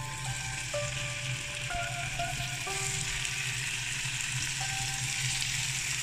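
Marinated beef skewers frying in hot mustard oil in a pan: a steady sizzle that grows louder about halfway through as more skewers are laid in. A simple background music tune plays over it.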